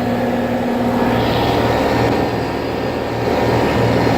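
A 2008 Rheem Classic central air conditioner's condensing unit running: the condenser fan blows air and the reciprocating compressor hums. The result is a loud steady drone with a pulsing low hum, and one steady tone drops out about a second in.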